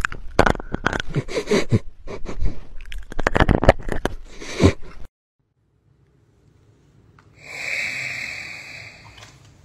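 A dachshund making a quick, irregular run of breathy nose sounds close into a small microphone held at its snout, which stops abruptly after about five seconds. A short hiss follows near the end.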